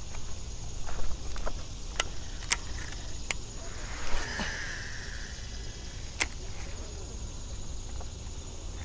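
A cast with a Shimano Antares DC baitcasting reel: a short whoosh and the whine of the spool paying out line about four seconds in, with a few sharp clicks from the reel being handled before and after.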